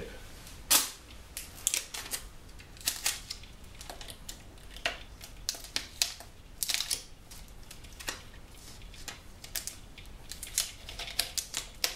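Thin plastic from a cut 2-liter soda bottle crackling and clicking irregularly as it is handled and pressed together while the two cut fins are taped at the join.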